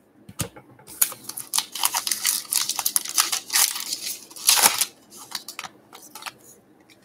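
Trading cards and their pack wrapper being handled: a dense run of crinkling, rustling clicks lasting about four seconds, then a few lighter clicks near the end.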